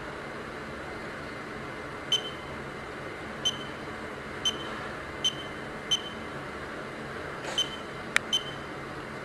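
Pyramid-style digital alarm clock-thermometer giving seven short, high electronic beeps at uneven intervals, typical of its buttons being pressed while it is set. A sharp click comes about eight seconds in, over a steady hiss.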